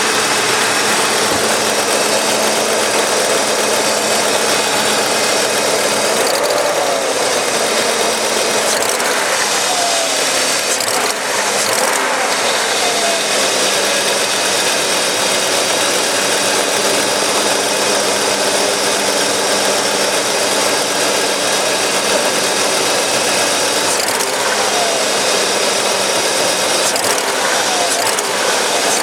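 BMW M62 4.4-litre V8 engine running steadily at idle, with a mechanical noise from the top end that the owner suspects is valve lifter noise.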